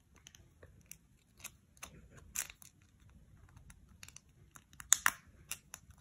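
Scattered small clicks and scrapes of a nut being pushed by hand into the captive nut slot of a 3D-printed plastic part. The sharpest clicks come about two and a half seconds in and again near five seconds.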